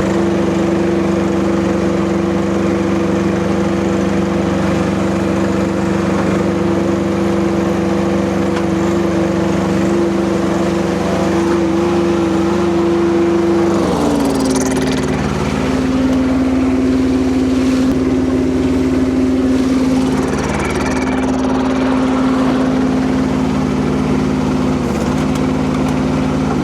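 Kubota diesel engine of a Rippa RS04 mini skid steer running steadily at higher revs, then dropping to a lower engine speed about halfway through, with a few faint knocks after that.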